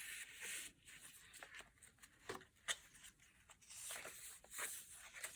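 Faint rustling of paper pages and cards as a handmade junk journal is leafed through, with a few soft taps.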